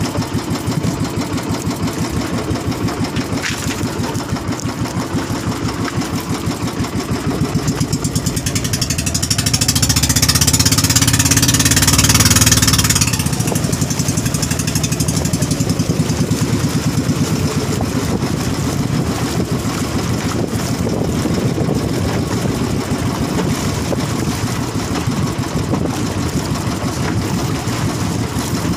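Small outrigger fishing boat's engine running steadily with a fast, even beat. Around the middle a rushing hiss swells over it for a few seconds.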